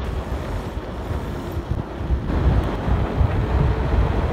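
Wind buffeting the microphone of a camera riding on a moving mountain bike, a steady low rushing rumble.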